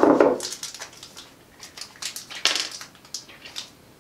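Plastic packaging bag crinkling in the hands as it is opened. It is loudest at the start, with another burst about two and a half seconds in and scattered crackles between.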